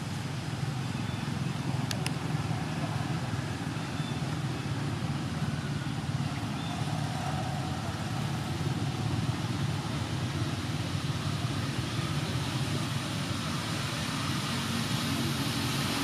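Steady low mechanical rumble, like an engine running, with an even hiss over it and no distinct events.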